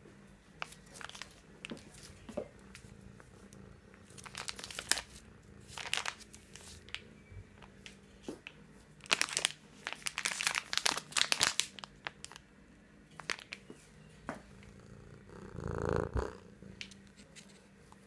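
Foil-lined cat food bag crinkling as it is shaken and handled, in irregular bursts of sharp crackles, with a dense run of them in the middle.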